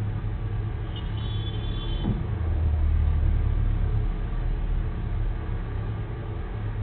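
Low, steady rumble of road traffic, swelling as a vehicle goes by about two seconds in with a falling pitch. A brief high squeal comes just before it.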